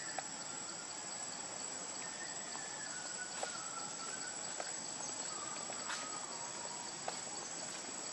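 Steady high-pitched drone of insects in forest undergrowth, with a few short, faint whistled notes and scattered light clicks.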